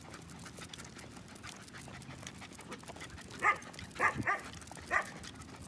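A dog giving four short barks in the second half, three of them close together.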